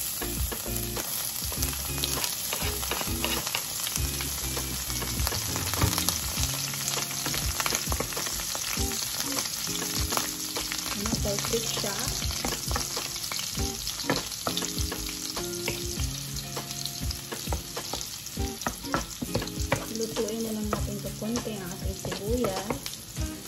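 Diced pork and chopped onions sizzling in hot oil in a frying pan, the sizzle jumping up as the onions go in, with a wooden spoon stirring and knocking against the pan.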